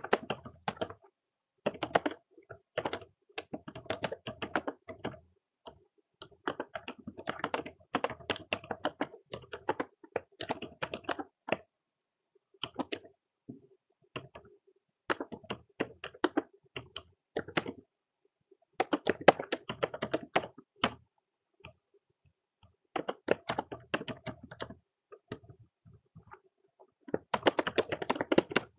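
Typing on a computer keyboard: rapid keystrokes in bursts of a few seconds, with short pauses between.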